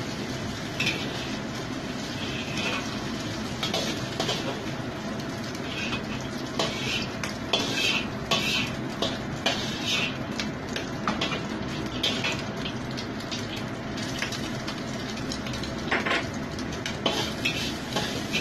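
Metal spatula repeatedly scraping and tapping against a wok, with a steady sizzle of egg frying in oil underneath.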